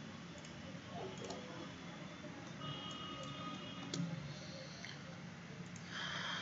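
Scattered faint computer-mouse clicks over quiet room noise, with a short soft rustle near the end.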